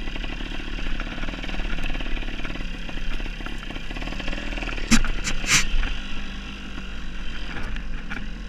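Dirt bike engine running as the bike is ridden over rocky ground, with three or four sharp knocks about five seconds in.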